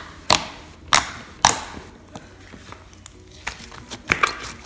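Red butter slime being poked and squished by fingers, giving sharp pops: three loud ones in the first second and a half, then softer clicks and a small cluster near the end.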